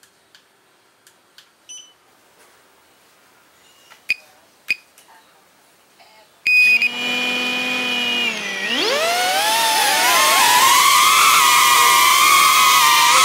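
Small FPV drone's electric motors starting with a sudden steady whine about six and a half seconds in, then spinning up in a sharp rising whine as the drone lifts off and holding a loud, steady high-pitched whine in flight. Two short beeps come just before.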